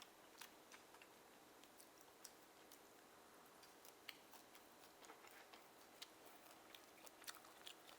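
Near silence broken by faint, scattered clicks and ticks, irregularly spaced, from quiet eating and handling of steamed oysters.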